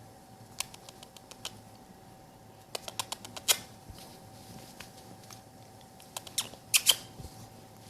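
Sharp clicks and taps in three short clusters, the loudest near the middle and near the end, over a faint steady hum.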